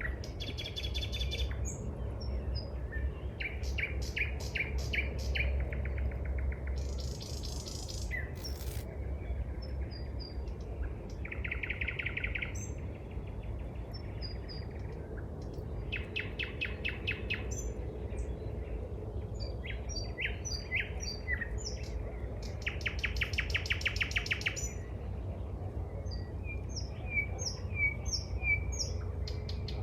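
Several songbirds singing, a mix of rapid trills and short chirps that come and go throughout, over a steady low rumble.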